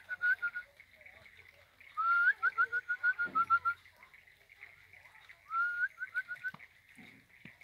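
A loud whistled call, a rising note followed by a quick run of short pips, repeated about three times, over a steady chorus of small frogs ticking.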